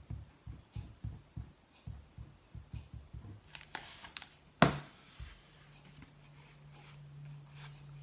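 Tombow liquid glue bottle dabbed onto paper card, a run of soft low taps and bumps. About four and a half seconds in comes one sharp knock as the bottle is set down on the wooden tabletop, then light paper handling.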